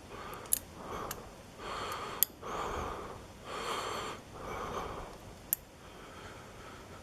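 Close breathing at the microphone, a run of soft breaths about a second apart, with a few sharp small metal clicks from tools working pins out of a lock cylinder.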